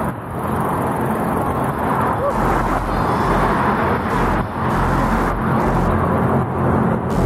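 Steady wind and road noise from riding along a road, with motor traffic.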